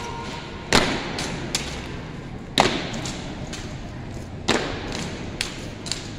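Armed drill team striking their rifles in unison: three loud, sharp, echoing cracks about two seconds apart, with lighter clicks of rifle handling and footsteps between them.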